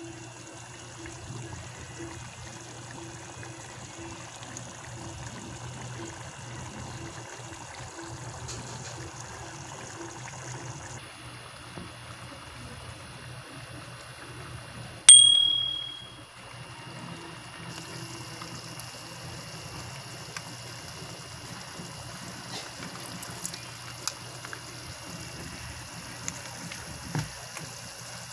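A wide pan of pork picadillo simmering on a gas stove, a steady bubbling hiss. About halfway through, a single loud, bright ding rings out and fades over about a second.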